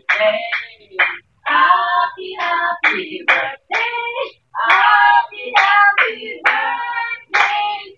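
A high-pitched voice singing in short phrases, with brief gaps between them.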